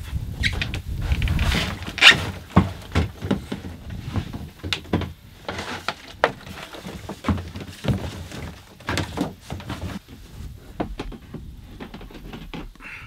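Hollow knocks and thunks of a plastic kayak and its load as it is pushed through grass into the water, coming irregularly throughout with the loudest about two seconds in. A low wind rumble sits under the first couple of seconds.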